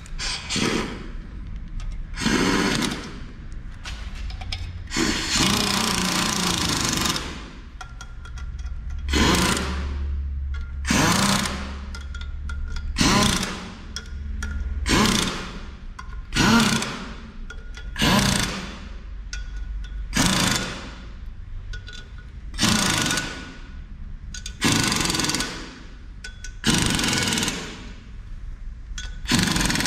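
Pneumatic impact wrench running in short bursts, about one every two seconds, with two longer runs near the start. It is driving down the bolts of a twin-disc clutch's pressure-plate cover onto the flywheel, compressing the clutch spring.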